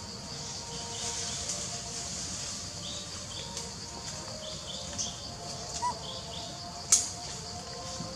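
Forest ambience: small birds chirping in short repeated notes over a steady high-pitched hiss, with one sharp click about seven seconds in.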